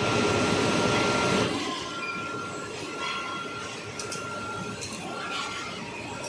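Industrial machinery running on an aluminium ingot production line. A loud hissing rush lasts about the first second and a half, then steady mechanical noise follows, with an on-and-off high whine and a few metallic clicks.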